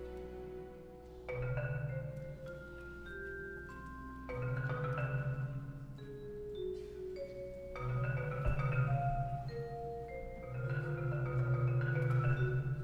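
Orchestral music played live, with tuned mallet percussion notes over low sustained swells that come in about every three seconds.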